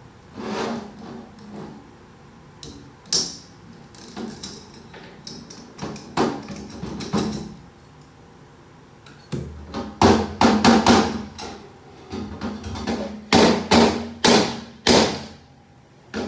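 Metal parts of a VW 09G six-speed automatic transmission knocking and clanking as it is taken apart on the bench, with scattered single knocks and two dense runs of loud clanks, one about ten seconds in and another from about thirteen to fifteen seconds.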